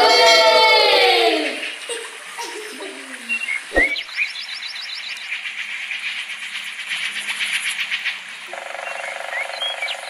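Sound effects played by an augmented-reality animal app. A loud, falling, pitched cry comes at the start. From about four seconds in, a fast, even fluttering buzz begins and stops abruptly.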